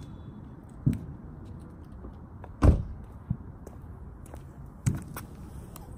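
Four dull thumps over a steady background hiss, the loudest about two and a half seconds in.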